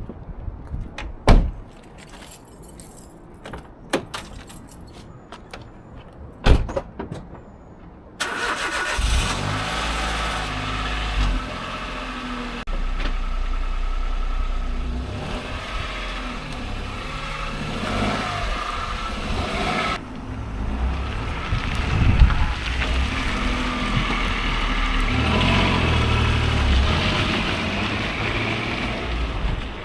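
A few sharp clicks and knocks, then a car running, with steady engine and road noise that changes abruptly twice, as at edit cuts.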